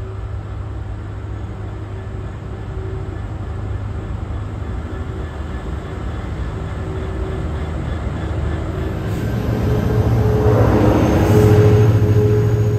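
Diesel locomotives hauling a passenger train, a GBRf Class 66 (EMD two-stroke V12) leading Class 73/9 73966, running with a steady low drone. The drone grows louder as the train approaches and is loudest about 11 seconds in as the locomotives pass beneath, then eases slightly.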